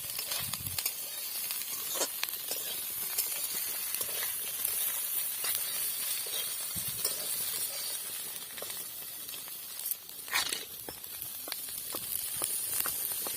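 Oil and food sizzling steadily in a cooking pan as the dry fish curry fries, with scattered light clicks of a utensil against the pan.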